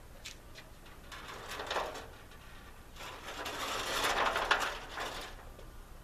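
Aluminium stepladder being lifted and repositioned, its metal frame rattling and scraping in two bouts: a short one about a second in, and a longer, louder one from about three to five seconds.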